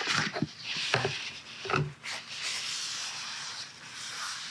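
Wad of paper tissue rubbing back and forth on a laminate wood floor, wiping up a spill, a steady scrubbing hiss broken by a few light knocks.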